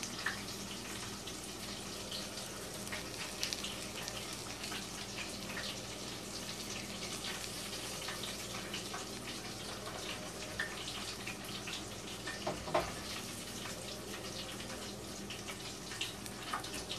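Coconut shrimp deep-frying in hot canola oil: a steady sizzle with scattered small crackles and pops over a low hum, and a couple of light knocks about two-thirds of the way through.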